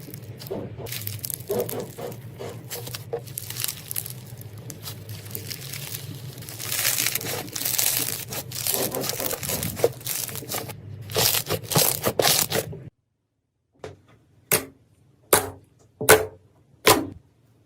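Slime being squeezed and pulled, a dense run of crackling and tearing sounds over a low hum. About thirteen seconds in this cuts off, followed by four short sharp squishes a little under a second apart.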